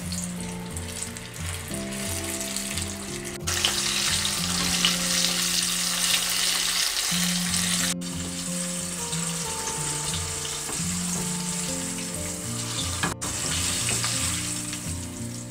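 Batter-coated prawns deep-frying in hot oil in a saucepan: a dense, steady sizzle, with soft background music of held notes underneath.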